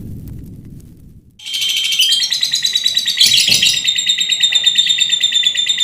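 Songbird singing a fast, continuous, rattling song of rapidly repeated high notes, the rapid-fire 'tembakan' style used as masteran to tutor captive lovebirds and songbirds. It starts abruptly about a second and a half in, after a low rumble fades out.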